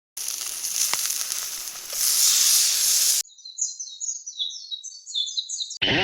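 A steady high hiss of noise for about three seconds that cuts off abruptly, then a bird singing in quick runs of repeated high chirping notes. Music starts just before the end.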